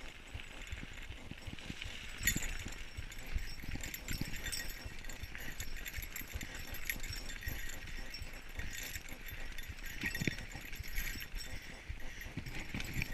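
Mountain bike riding down a dirt singletrack: tyres rumbling over dirt and roots, with irregular knocks and clinking rattles from the bike over the bumps.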